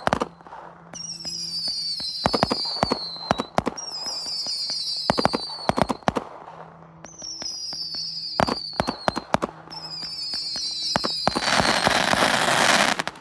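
Consumer fireworks going off: four whistling shots, each a whistle falling in pitch for about two seconds, about every three seconds, among sharp bangs and pops. Near the end a dense crackling hiss lasts about two seconds and cuts off suddenly.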